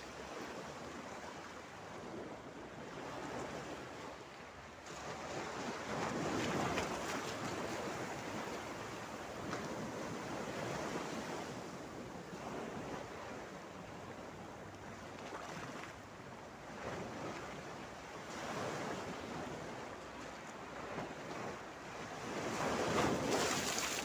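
Mediterranean Sea waves breaking and washing over a flat rock shelf. The wash swells every few seconds, and the biggest surge comes near the end.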